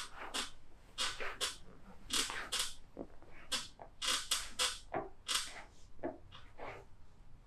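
Hands slapping and patting on a body in a percussive massage: short, sharp slaps, about two or three a second and unevenly spaced.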